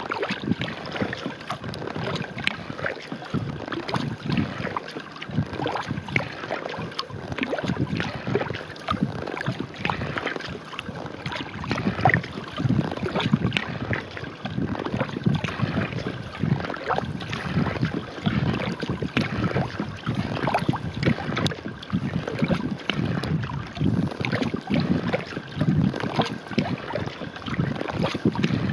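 Wooden kayak paddle dipping into and pulling through calm lake water, splashing and dripping stroke after stroke as the skin-on-frame kayak glides along.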